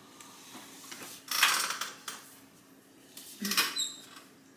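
Kitchen items being rummaged through and moved: two clattering bursts, about a second in and again after three seconds, the second ending in a short high ring.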